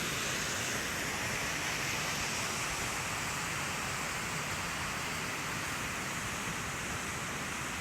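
Steady, even rushing of running water, with no change in level.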